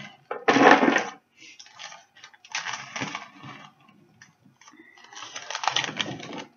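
Baked oat granola clusters being broken up and pushed around a baking tray by hand: crunching and rustling in several bursts.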